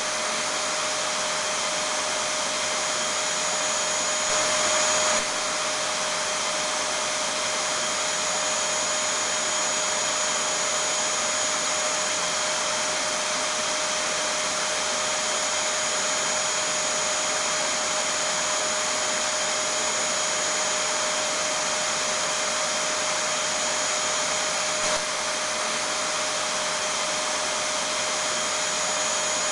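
Vacuum cleaner running steadily: an even rush of air with a steady whine over it, briefly a little louder about four seconds in.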